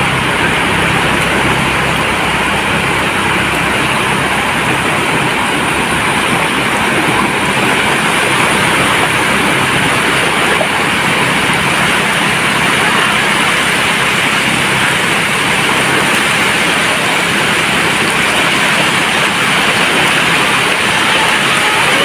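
Sea waves breaking and washing on a beach: a loud, steady rush of surf with no distinct single wave crashes.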